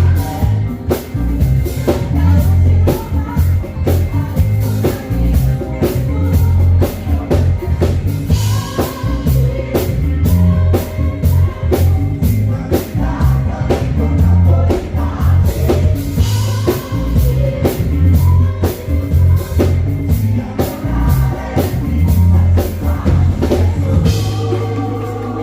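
A band playing a song: a steady drum-kit beat over bass and other instruments, with singing.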